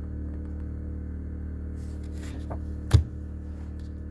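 Photo prints being handled and swapped: a short paper rustle, then one sharp tap near three seconds in, over a steady low hum.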